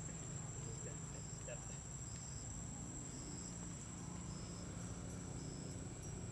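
Insects in the forest undergrowth, one keeping up a steady, high-pitched drone while short chirps a little lower in pitch repeat about once a second, over a low steady rumble.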